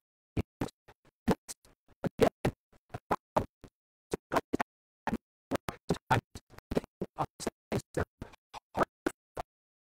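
A man's voice chopped up by an audio dropout glitch: short fragments of speech several times a second, with dead silence between them, so no words come through.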